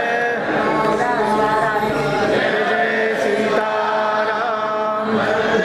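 Devotional aarti chanting: voices singing a hymn in long, held notes.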